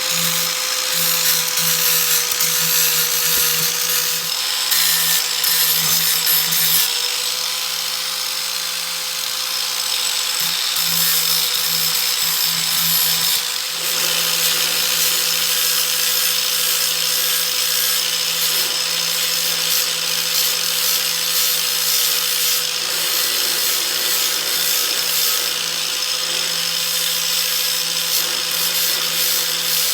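Electric grinder running steadily while its wheel grinds the steel edge of a lawnmower blade, the grinding noise swelling and easing as the blade is pressed to the wheel. This is the edge being ground level and re-angled to sharpen a worn, bowed blade.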